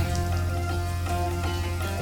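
Instrumental background music with a held bass note under sustained pitched tones.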